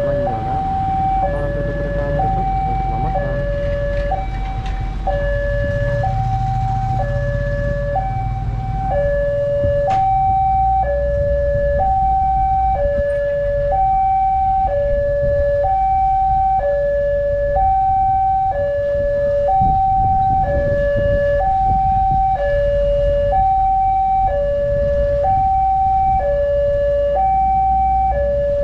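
Railway level-crossing warning alarm sounding: a loud electronic two-tone signal stepping evenly between a higher and a lower pitch, each held about a second, warning of an approaching train. Motorcycle engines rumble low underneath.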